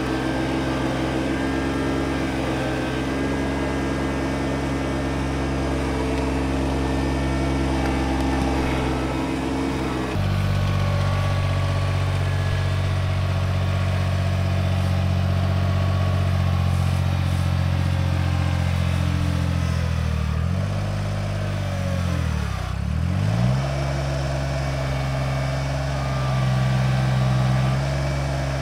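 John Deere 755 compact tractor's diesel engine running steadily. About a third of the way in its note changes abruptly to a lower, heavier one. Past the middle, the engine speed sags and recovers once.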